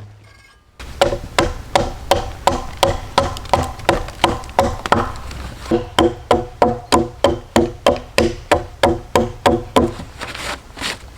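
A hammer striking wood in a long series of sharp, ringing knocks, about three a second at first and quickening to about four or five a second halfway through.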